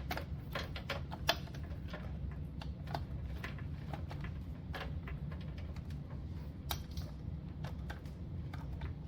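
Irregular light clicks and taps as a screwdriver works the mounting screws of a stock CPU cooler, over a low steady hum.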